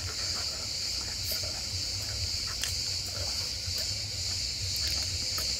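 Steady high-pitched chirring of insects, with a low rumble underneath.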